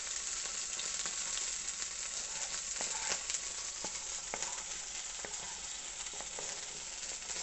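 Curry leaves, ginger and garlic sizzling in hot coconut oil in a nonstick pan, stirred with a wooden spatula. A steady hiss with scattered small pops.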